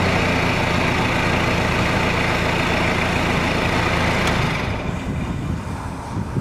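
A vehicle engine running steadily. It is loud and even for the first four and a half seconds, then drops and thins out near the end.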